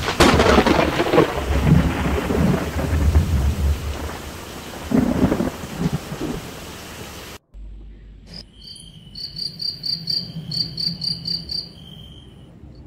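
Heavy rain pouring, with low rumbles of thunder. After a sudden cut about seven seconds in, insects chirp in quick series of high, even pulses, several a second.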